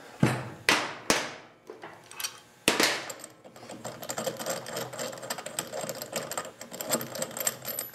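A few sharp metal clanks from hand tools, then several seconds of rapid, light metallic clicking as the loosened flywheel nut and steel starter cup are worked off the crankshaft of a Predator small engine by hand.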